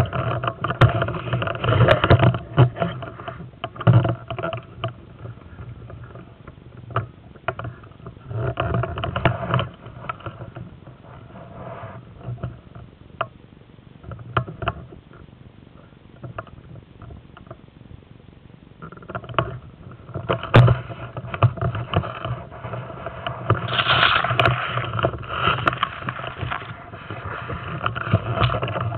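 Rustling and scraping handling noise from a camera mounted on an airsoft rifle as it is moved about, with scattered sharp clicks, in uneven bursts.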